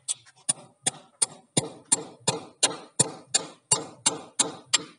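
A steady run of sharp knocks, about three a second, evenly spaced and growing a little stronger after the first second.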